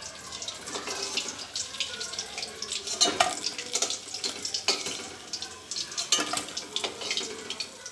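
Hot oil sizzling and crackling in a kadai as fried katla fish pieces are lifted out, with a few sharper clicks and taps of the spatula against the pan.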